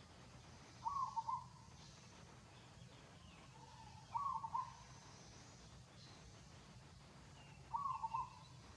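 A short hooting animal call, repeated three times about every three and a half seconds, over a faint steady low hum.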